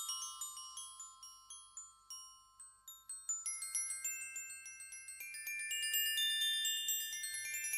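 High tinkling chime notes struck in quick succession, thinning out and nearly dying away about two seconds in, then building back up and growing fuller from about five seconds in.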